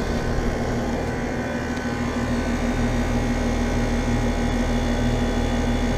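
Comfortmaker central air conditioner outdoor condensing units running: a steady rush of air from the condenser fans over a steady low compressor hum.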